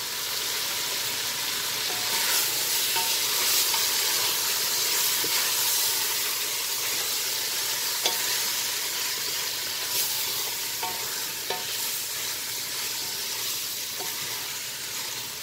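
Meat, onions and spices sizzling as they fry in a large stainless steel pot, with a few light knocks now and then.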